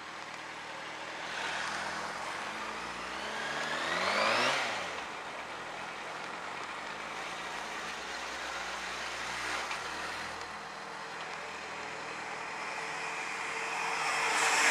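Yamaha FZ6 S2's four-cylinder engine pulling the bike along, its note rising in pitch as it accelerates to a peak about four seconds in, then dropping back, with another louder rise near the end. Wind and road noise run under it.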